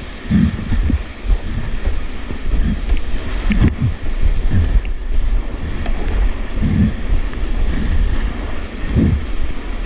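Whitewater rapids rushing loudly around a kayak running down through them, with irregular low thumps and buffeting throughout.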